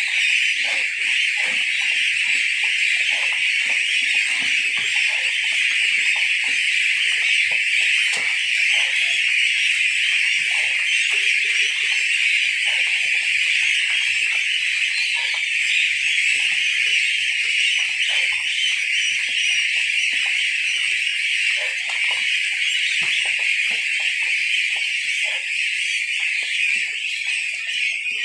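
A large flock of goslings (young geese, about 18 days old) peeping together in a dense, steady, high-pitched chorus.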